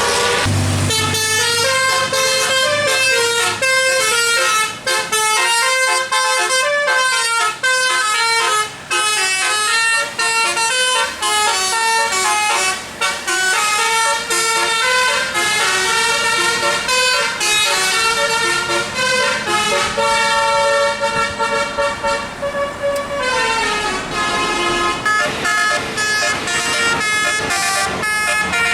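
Indonesian bus 'telolet' multi-tone musical air horn playing a long, fast run of melody notes, several horn tones sounding together. About three-quarters of the way through the tones slide down in pitch together before the tune carries on, with a low rumble under the horn at the start and near the end.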